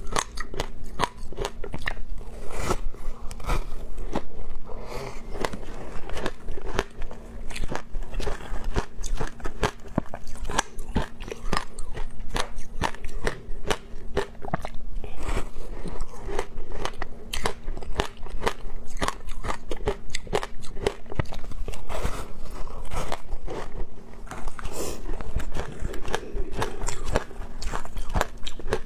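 Teeth biting and crunching through a block of ice coated in passion fruit pulp and seeds, chewing it with rapid, continuous crackling crunches.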